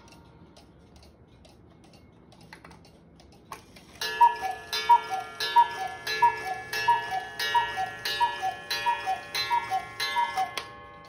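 Hones beer-drinker chalet cuckoo clock ticking softly, then about four seconds in the cuckoo starts calling its two-note "cu-ckoo", high note then low, about ten times at a bit faster than once a second: the clock striking ten o'clock.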